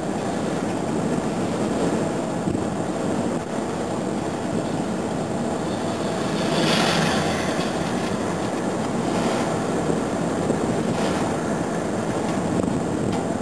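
Steady road and engine rumble heard from inside a moving patrol car, with a brief louder rush of hiss about halfway through.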